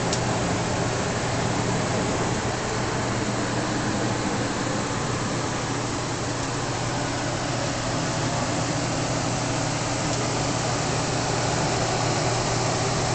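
A steady mechanical hum with a low drone.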